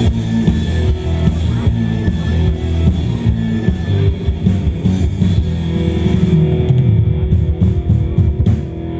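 Live rock band playing loudly through a PA: electric guitars over a steady drum kit beat.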